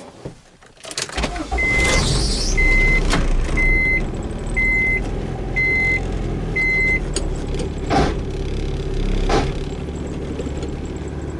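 Acura Integra's B18 four-cylinder engine running steadily, while a dashboard warning chime beeps six times, about once a second. A few sharp knocks or clunks sound through it.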